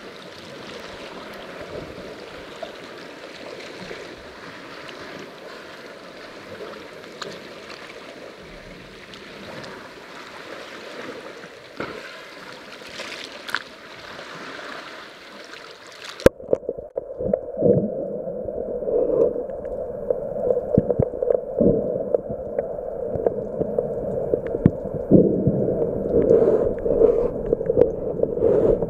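Sea water lapping and splashing at the surface at the foot of a rock cliff. About halfway through the microphone goes under water and the sound turns suddenly muffled and dull, with many irregular knocks and pops.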